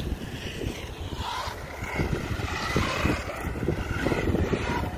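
Battery-powered RC monster truck driving on concrete: its electric motor whines, the pitch rising and falling with the throttle, over a steady rumble of noise.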